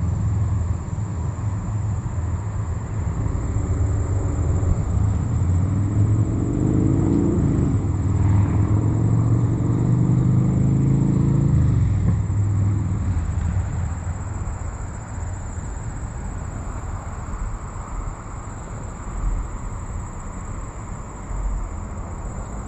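A motor vehicle's engine running nearby, a low rumble whose pitch shifts up and down, loud through the first half and fading away after about 13 seconds.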